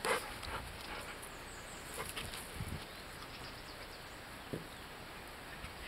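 Quiet open-air background with a few faint, soft knocks and clicks scattered through it.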